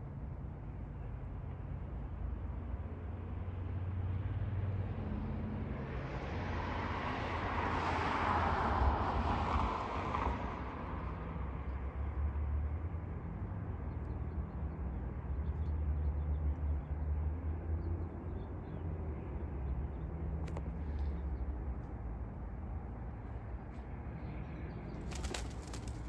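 A car passing on the road, swelling up and fading away over a few seconds, over a steady low rumble. Near the end, a short burst of sharp clicks.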